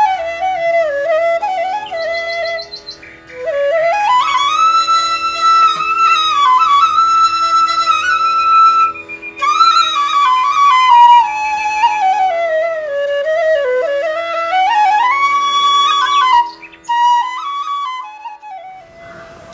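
Background music: a solo flute playing a slow, sliding melody over a steady drone, fading out near the end.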